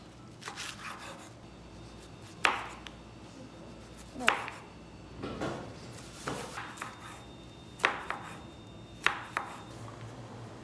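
Kitchen knife cutting vegetables on a wooden cutting board. First come soft crunching cuts through lettuce, then single sharp knocks of the blade hitting the board, roughly one a second, as it slices Korean zucchini.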